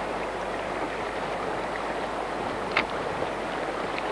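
River water rushing steadily over and around rocks in a rapid, with one short sharp click about three seconds in.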